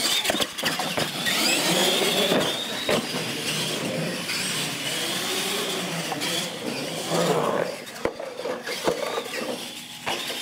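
Electric R/C monster trucks racing on concrete: the motors and gears give a rising whine as they accelerate, over tyre noise. Sharp knocks come in the first second as a truck lands off the ramp, and again near the end.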